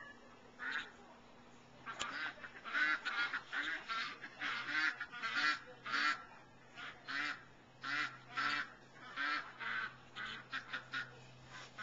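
Chickens squawking and cackling in a long series of short, repeated calls, about two a second, growing quicker near the end.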